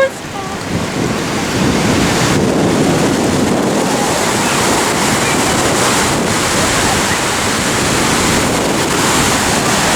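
Ocean surf rushing and breaking close by, building up over the first second or two and then holding steady, with wind buffeting the microphone.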